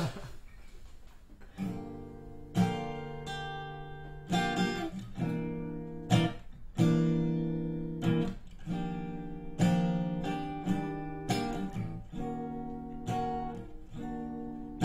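Solo acoustic guitar playing a slow song intro: chords strummed about once a second and left to ring, starting about a second and a half in.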